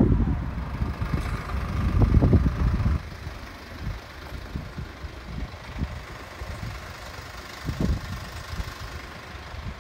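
Wind buffeting the microphone in irregular gusts, heaviest for the first three seconds and then in occasional bumps, over a steady faint hiss.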